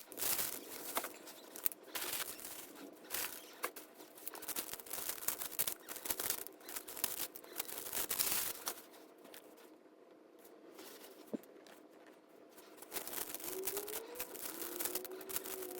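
Rustling, crinkling handling noise in irregular bursts, with a quieter stretch in the middle and a couple of short gliding tones near the end.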